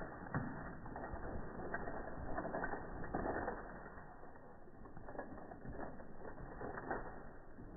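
Downhill mountain bike's rear-hub freewheel ratcheting as it coasts, with tyre crunch on dirt and scattered knocks from the bike over the rough trail.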